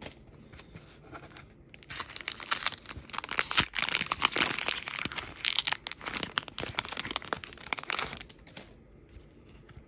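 Foil Pokémon booster-pack wrapper being torn open and crinkled, a dense crackling that starts about two seconds in and stops near the end.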